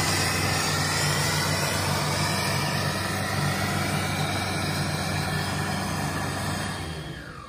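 Diesel tractor engines running hard under full load as a Sonalika tractor pulls against a second tractor in a tug-of-war, a steady, heavy engine note that dies away near the end.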